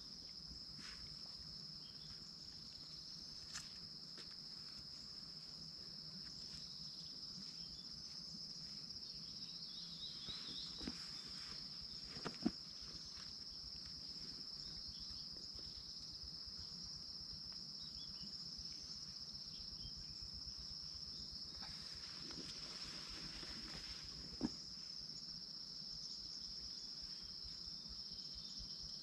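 Steady high-pitched insect chorus, unbroken throughout, with a few short sharp knocks or clicks, the loudest near the middle and another late on.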